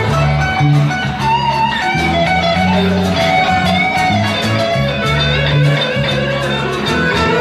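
A band playing an instrumental passage without singing: guitar over a moving bass line.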